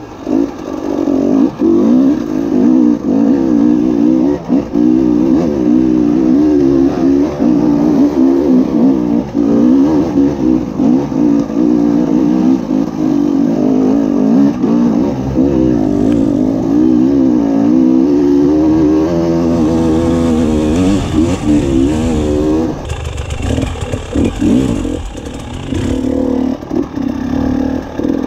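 A 300 cc two-stroke enduro motorcycle engine being ridden, its pitch rising and falling constantly with the throttle.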